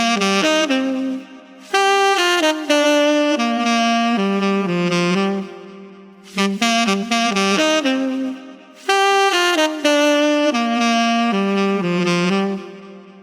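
Solo saxophone playing a melody in short phrases of changing notes, with brief pauses between phrases; the whole passage is played twice.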